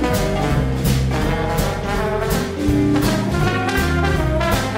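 Upbeat jazz background music with brass instruments and a steady beat.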